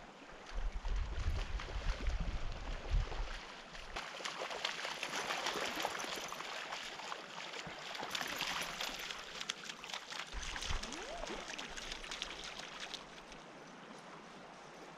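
Shallow creek water rippling over sand, with splashing footsteps of a person and a dog wading through it close by, busiest in the middle. Wind buffets the microphone near the start.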